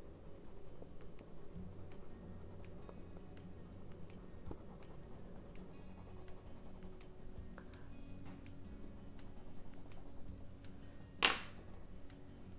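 Caran d'Ache Neocolor II water-soluble wax crayon scratching across paper in small colouring strokes, under faint background music. A brief sharper sound stands out about eleven seconds in.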